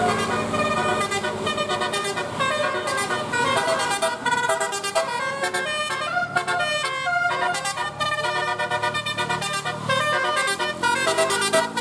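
Indonesian bus 'telolet' multi-tone horn playing a tune: a fast run of short horn notes stepping up and down in pitch.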